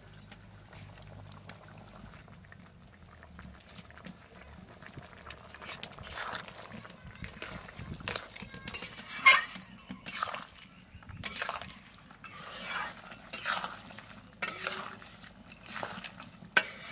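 Metal ladle stirring and scraping a thick meat curry in a metal kadhai, in irregular strokes that start about six seconds in, with one sharp clink against the pan near the middle.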